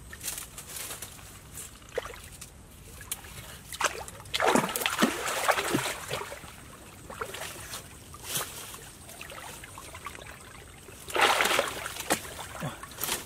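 Shallow river water splashing and sloshing as a person wades in and reaches under submerged tree roots by hand. The splashing comes in bursts, one about four and a half seconds in and another near the end, with small clicks and drips between.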